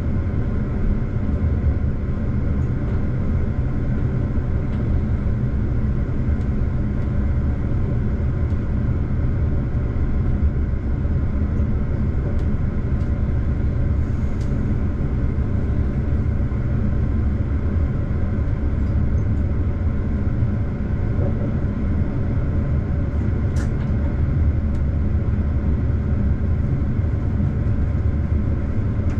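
Regional diesel train running at about 80 km/h, heard from the driver's cab: a steady low rumble of the engine and the wheels on the rails.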